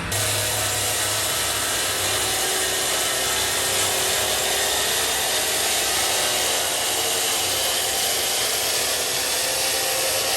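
Woodworking power tool cutting wood, a steady even hiss at a constant level.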